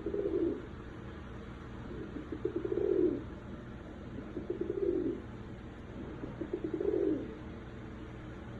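Domestic pigeon cooing: four rolling coos about two seconds apart, each swelling and then dying away.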